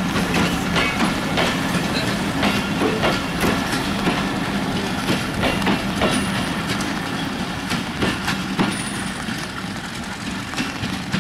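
Broad gauge passenger coaches of a diesel-hauled commuter train rolling past, their wheels clattering over the rail joints in a dense run of clicks over a steady hum. The sound fades gradually in the second half as the train moves away.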